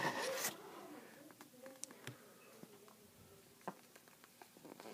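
Plastic packaging being handled: a brief scraping rasp at the start, then scattered light clicks and taps, with one sharper click near the end.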